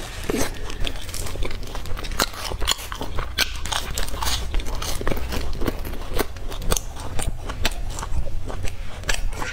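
Close-miked biting, tearing and chewing of a large crusty bread loaf: the crust crackles in many sharp, irregular snaps throughout, over a steady low hum.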